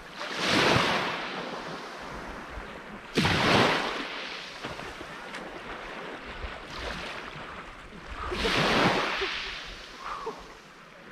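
Sea waves breaking on a beach: a steady hiss of surf that swells three times, the second surge starting abruptly about three seconds in.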